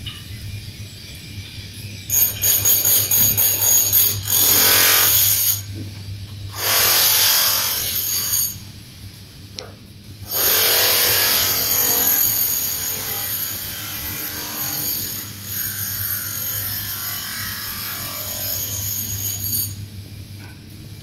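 A power tool used in shop renovation works in bursts: a few short runs, then one long run of about ten seconds. A steady low hum sits under it.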